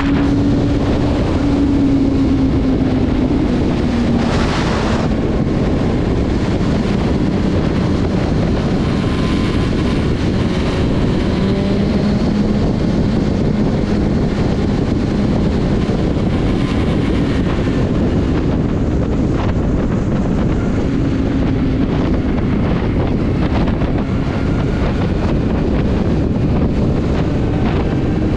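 Motorcycle engine running at road speed under heavy wind rush on the microphone, its low drone drifting slowly up and down in pitch with the throttle.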